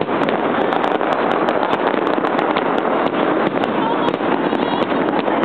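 A dense, unbroken barrage of fireworks and firecrackers: a continuous loud crackle with many sharp bangs every second.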